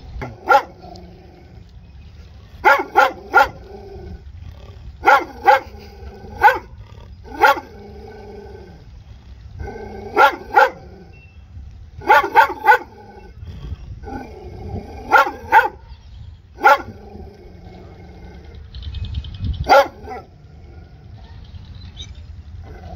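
A dog barking: sharp barks in runs of one to three in quick succession, a run every one to three seconds.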